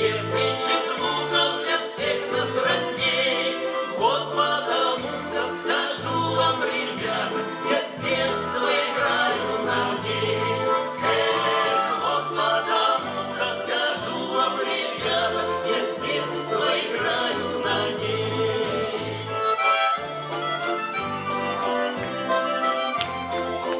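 Russian folk music led by a garmon (button accordion), its bass buttons keeping a steady pulse under the melody, with a folk ensemble singing.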